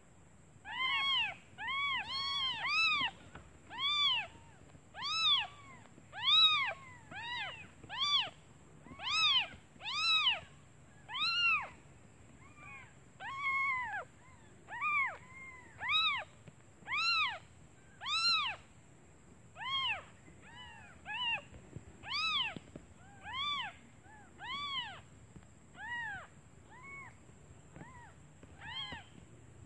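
Newborn kittens mewing over and over, thin calls that rise and fall in pitch, about one a second and sometimes overlapping: hungry kittens calling for their mother.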